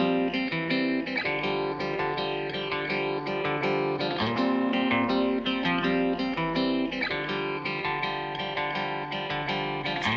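Background music: plucked guitar with a steady pattern of notes.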